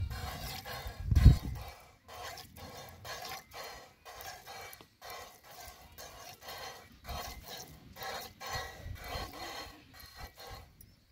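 Hand-milking a cow: rhythmic squirts of milk hitting a milk pail, about two or three a second. A loud low rumble comes about a second in.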